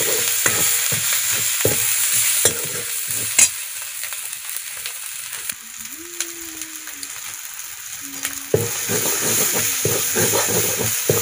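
Masala frying and sizzling in a steel kadhai while a steel spoon stirs and scrapes the pan, with a sharp clink of the spoon at about three seconds. The stirring pauses for a few seconds midway, leaving a softer sizzle, then resumes near the end.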